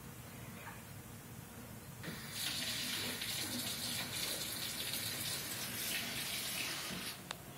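Water running from a tap for about five seconds, starting and stopping abruptly, with a single sharp click just after it stops.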